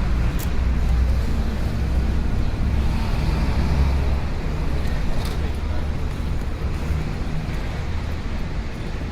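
City street ambience: a steady low rumble of road traffic with people's voices mixed in.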